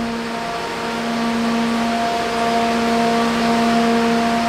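Steady mechanical drone in a dyno bay: a constant-pitched hum with several overtones over a broad rushing noise, holding level without revving.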